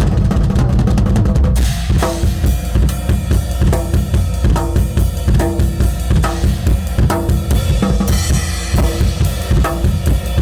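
Tama drum kit with Evans heads played in a fast, busy pattern of many hits, with a strong bass drum under snare strokes.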